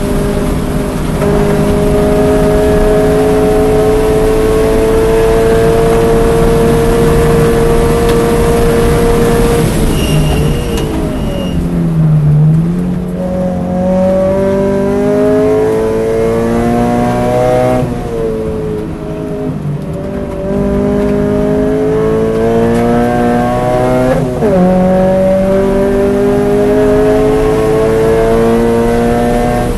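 2013 Scion FR-S's flat-four engine at full throttle on a race track, heard from inside the cabin. It holds a high, slowly rising pitch, then drops sharply about ten seconds in as the car brakes hard for a slow corner. It then climbs again, with quick drops in pitch at gear changes as the car accelerates back up to speed.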